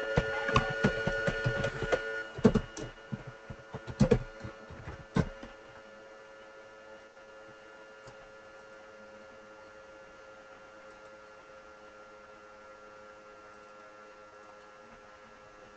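Computer keyboard typing, a quick run of key clicks for the first five seconds or so, then it stops. Under it a steady electrical hum with a few fixed whining tones, louder at first and then faint.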